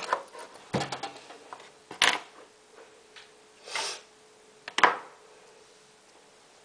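Handling noise from putting together a homemade remote-controlled car: a series of sharp plastic clicks and knocks about a second apart, the loudest near five seconds in, with a short scrape just before it.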